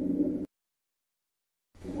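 Stethoscope recording of abnormal lung sounds, low-pitched and dense, stops abruptly about half a second in. After a little over a second of silence, the next lung-sound recording fades in near the end.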